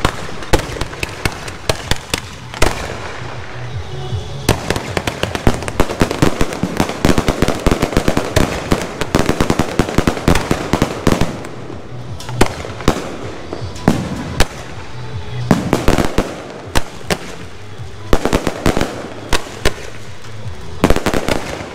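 Aerial fireworks barrage: shells launching and bursting overhead in a rapid run of sharp bangs and crackling, several reports a second, densest around the middle.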